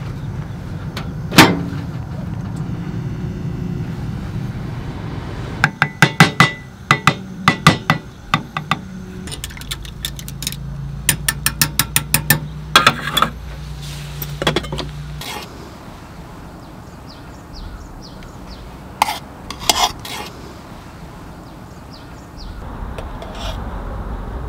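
Cutlery and dishes clinking: a run of sharp clinks, a few a second, then a quicker run of lighter ticks and a few scattered knocks, over a low steady hum that stops about two-thirds of the way through.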